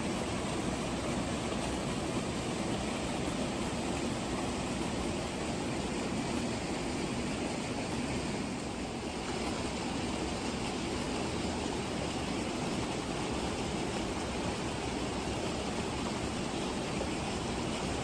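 Mountain stream rushing steadily over rocks and spilling through a small rapid into a pool.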